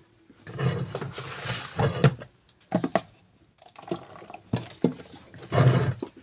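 Thick homemade liquid laundry soap being poured into a plastic jug in several uneven bursts, splashing into the mixture already inside.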